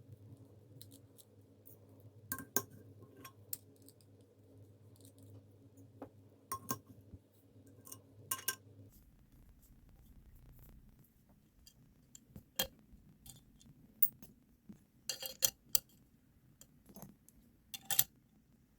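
Small hard parts clicking and clinking as a Rapt V2 magnetic fidget slider is taken apart and its inserts swapped for brass ones: magnets and metal inserts snapping and tapping against the plates. Single sharp clicks are scattered through, with a quick cluster of them near the end.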